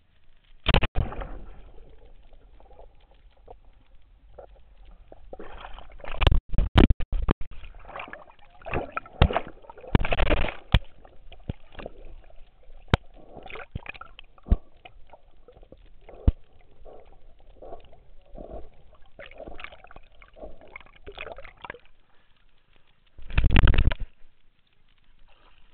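Pool water sloshing and gurgling right against a camera worn by a swimming, diving dog. Several loud splashes come about a second in, around six to seven seconds, around ten seconds and again near the end.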